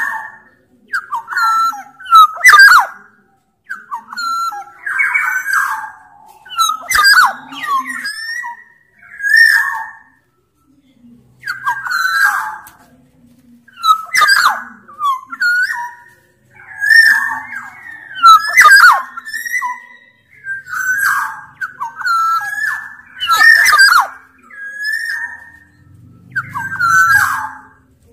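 Sumbawa black-naped oriole singing steadily, with short phrases of bending whistled notes mixed with harsh, rasping calls, repeated every second or two.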